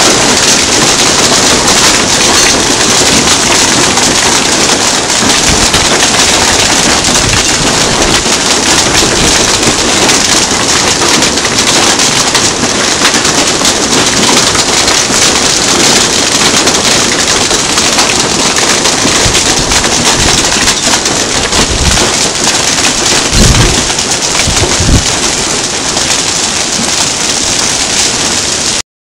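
Hail and rain pelting a wooden deck: a loud, dense, steady clatter of countless small impacts. Two brief low thumps come about three-quarters of the way through, and the sound cuts off suddenly at the very end.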